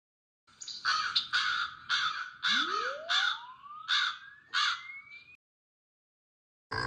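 Test sounds played by a pet hearing-test app: a run of about eight short crow-like caws, with a pure tone sweeping steadily upward in pitch under the last three seconds. Both stop abruptly together.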